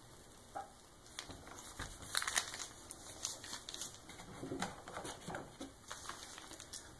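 Plastic pastry bag filled with buttercream crinkling as it is squeezed and handled during piping: a run of irregular crackles and small clicks starting about a second in.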